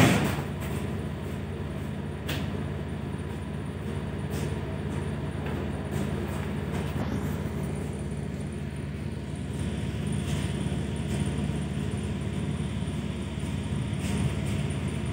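Steady running hum and rumble of an ED4M electric multiple unit heard from inside the carriage, with a few faint clicks scattered through it.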